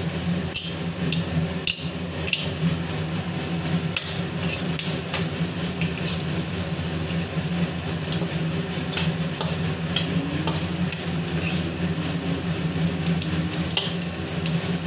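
Phuchka (pani puri) shells frying in hot oil in a kadai, sizzling, while a steel spoon stirs them with irregular sharp taps and scrapes against the pan. A kitchen chimney's extractor fan hums steadily underneath.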